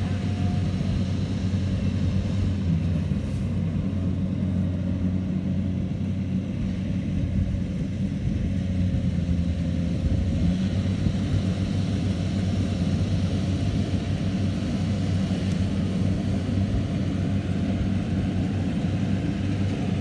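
Rice combine harvester running steadily while it works the field, an even low drone.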